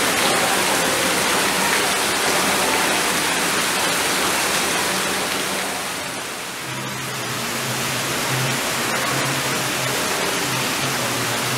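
Steady rushing noise. After a brief dip about six seconds in, a low hum joins it.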